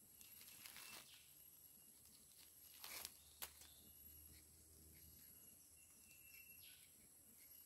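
Near silence, with a few faint scrapes of a rubber-tapping knife shaving a thin strip of bark from a rubber tree; the strongest comes about three seconds in, followed by a short click.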